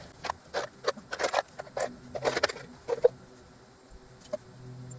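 Loose metal bolts clinking and rattling in a cup as they are picked through by hand, a quick run of sharp clinks for about three seconds, then one more a little later.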